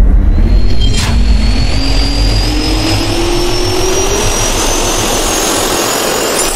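Jet engine spool-up sound effect: a deep rumble and rushing hiss with a whine that climbs steadily in pitch, and a sharp hit about a second in.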